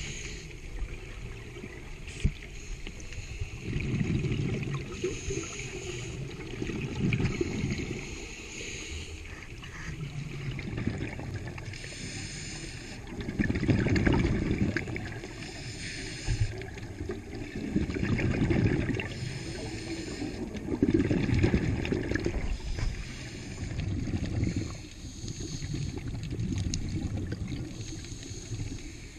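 Scuba diver breathing underwater through a regulator: a hiss on each inhale, then a rush of exhaled bubbles, repeating every two to three seconds.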